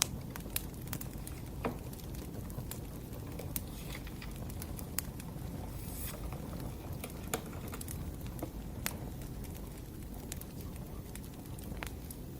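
Firewood burning, crackling with irregular sharp pops and snaps over a low steady rumble.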